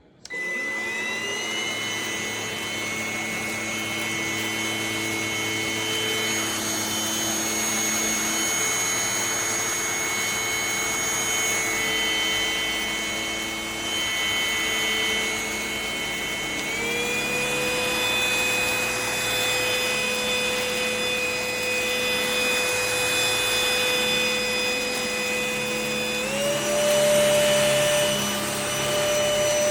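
Tdyon cordless stick vacuum switching on and spooling up to a steady high whine with rushing airflow. The motor steps up to a higher speed twice, about halfway through and near the end.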